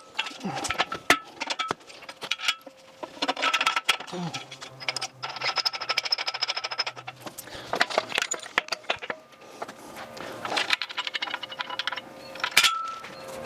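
Workshop engine hoist being wheeled and manoeuvred by hand: repeated metal clanks, knocks and jangling rattles.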